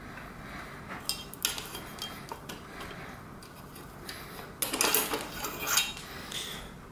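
Scattered metallic clicks and clinks as a hex wrench works the clamp bolts of a bicycle stem, then a longer scraping, rattling clatter past the middle as the handlebar is pulled out of the stem clamp.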